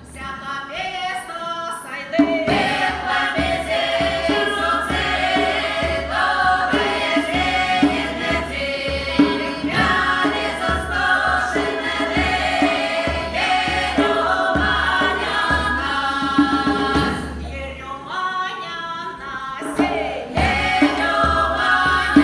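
Folk ensemble singing a Mordovian folk song in chorus over an accompaniment with a steady low beat. The music thins briefly about eighteen seconds in, then the full chorus comes back.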